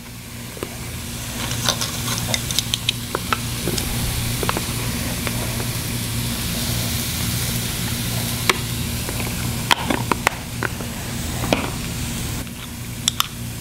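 Onions and mushrooms sizzling steadily in a cast iron skillet, with scattered light clicks and taps from a plastic spice-shaker lid as dried thyme is shaken in. A steady low hum runs underneath.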